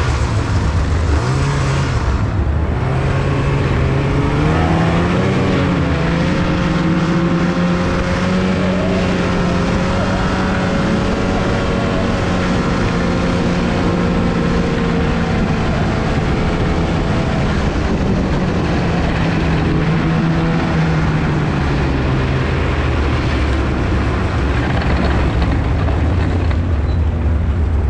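Snowmobile engine running under way, heard from the rider's seat. Its pitch climbs a few seconds in, holds steady for a long stretch, then eases down about twenty seconds in.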